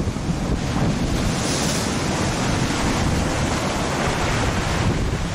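Storm waves surging and washing around small moored motorboats, with strong wind buffeting the microphone. The wash swells into a louder splash about a second and a half in.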